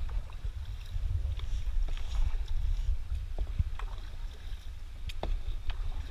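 Double-bladed paddles dipping and splashing as a tandem sit-on-top kayak is paddled, with a few sharp knocks spread through the strokes over a steady low rumble.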